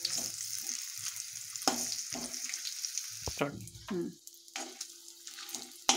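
Whole spices sizzling in hot oil in a steel kadai while a steel ladle stirs them, clinking and scraping against the pan. The sizzle thins out about halfway through, leaving scattered clinks.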